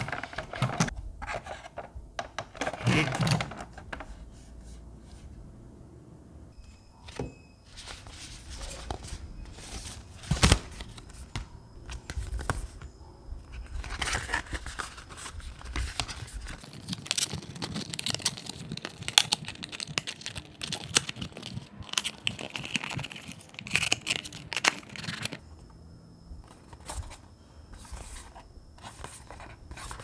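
Hands handling a plastic RC model truck and folding small printed cardboard cargo boxes. Scattered clicks and scrapes mix with the crinkling and creasing of thin card.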